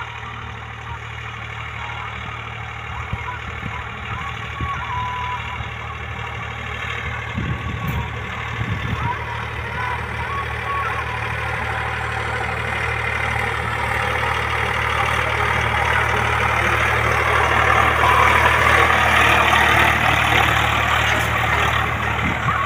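Tractor engine running steadily as it pulls a disc harrow through harvested field soil. It grows louder as it comes up and passes close by.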